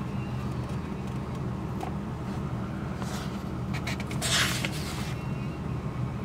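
A paper page of an old sewing machine manual being turned, a short rustle about four seconds in after a few light clicks. A steady low hum runs underneath throughout.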